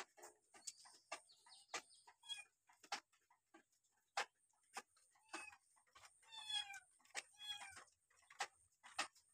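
Kitten mewing in about four short high-pitched calls, clustered in the middle and later part, among irregular sharp clicks.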